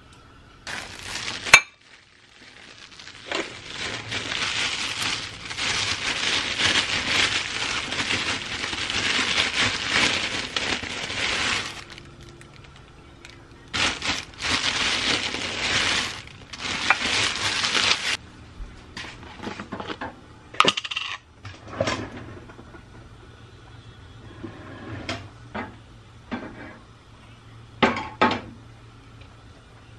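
Cooking sounds at a frying pan: a sharp clink about a second and a half in, then long stretches of rough scraping and rustling noise, and scattered clinks of a metal fork against the pan and dishes.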